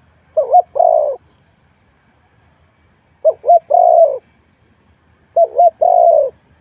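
Spotted dove cooing: three calls about two and a half seconds apart, each two quick short notes followed by a longer, slightly falling coo.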